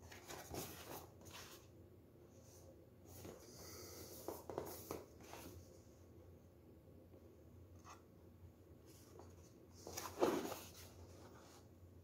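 Cardboard product box being handled and turned in the hands: faint scattered rubs and scrapes of fingers on cardboard, the loudest about ten seconds in.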